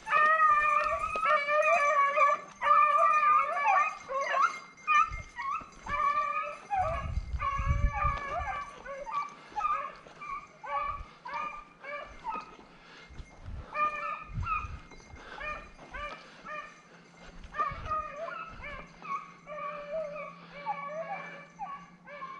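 Several hunting dogs baying as they run a rabbit's trail, overlapping repeated cries that are loudest over the first few seconds and then grow more broken and intermittent. A brief low rumble comes about seven seconds in.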